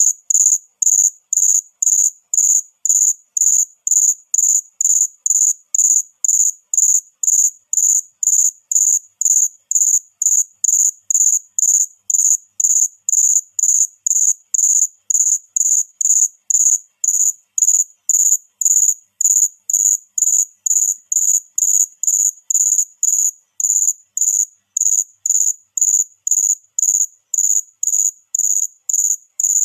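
A cricket chirping steadily: short, high-pitched chirps repeated evenly at about two a second.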